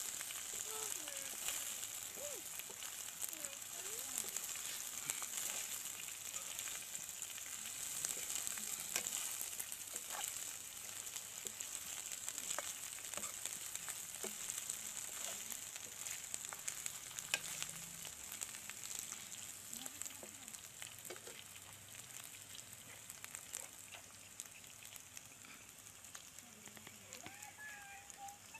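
Locusts frying in oil in a steel wok, a steady sizzle, while a spatula stirs them with short scrapes and clicks against the pan. The sizzle slowly dies down toward the end.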